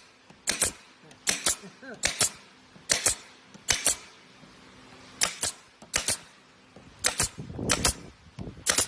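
Brad nail gun firing repeatedly, about nine shots at an uneven pace, each a sharp double snap.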